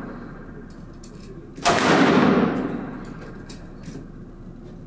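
A single pistol shot from a CZ SP-01, about one and a half seconds in, with a long echo dying away over about two seconds in an indoor shooting range. The echo of the previous shot is fading out at the start.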